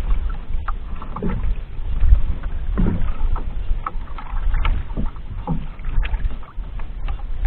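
Water lapping and slapping against the hull of a small outrigger boat, with short splashes every second or so and wind rumbling on the microphone.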